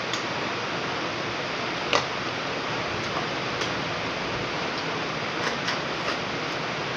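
Heavy rain falling in a steady hiss, with a few sharp clicks about two seconds in and again near the end.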